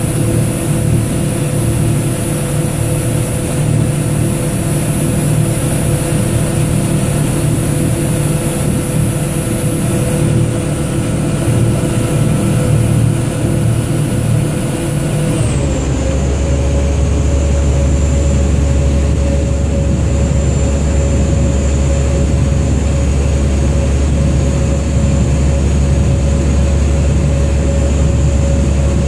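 A vaporetto's diesel engine running steadily under way, with several held tones over a deep hum. About halfway through the engine note slides down and the hum settles lower and heavier, then holds steady.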